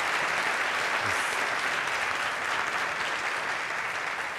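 Audience applauding, a dense even clapping that starts to fade near the end.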